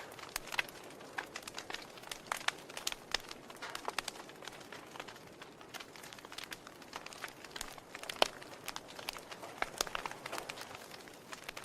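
Wood fire crackling: irregular sharp pops and snaps over a soft steady hiss, the loudest pop about eight seconds in.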